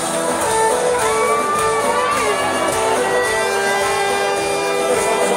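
Live band music played loud over a concert sound system, heard from within the audience in a large hall.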